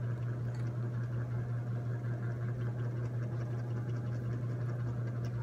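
Steady low hum of a running machine, unchanging, over a faint background hiss.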